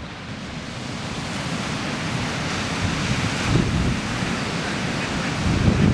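Ocean surf breaking and washing up a sand beach, swelling over the first two seconds and then holding steady. Wind gusts rumble on the microphone, most noticeably about three and a half seconds in and near the end.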